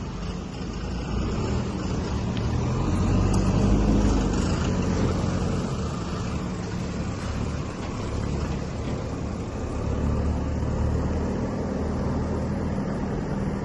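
JCB 3DX backhoe loader's diesel engine running under load, swelling louder about four seconds in and then holding steady.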